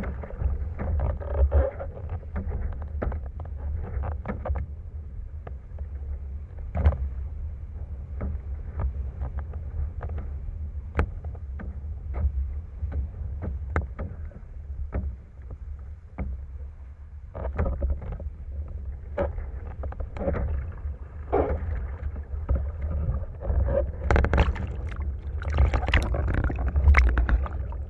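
Wind rumble and water slapping on a windsurf rig, with scattered knocks from the rig. Near the end, louder splashing as the sail falls into the water and the camera goes under.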